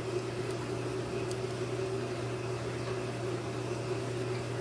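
Steady low hum from an unseen background machine, with a couple of faint light ticks from small metal servo parts being handled.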